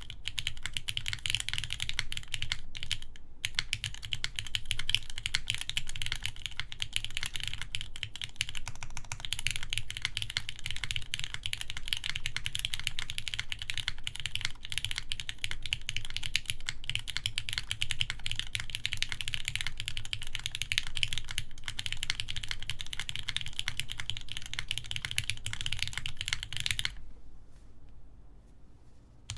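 Fast continuous typing on a mechanical keyboard with lubed Gateron X switches on an aluminum plate, under GMK keycaps: a dense run of clacking keystrokes. The typing stops about two seconds before the end.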